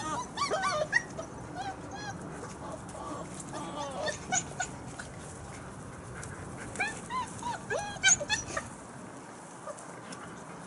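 Month-old German Shepherd puppies playing together and giving short high-pitched yips and whines in bursts, loudest about eight seconds in.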